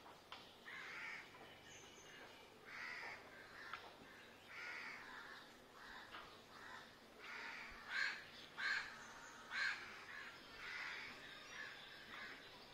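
Faint crow caws, harsh calls repeated every second or two, with a few louder caws about eight to ten seconds in.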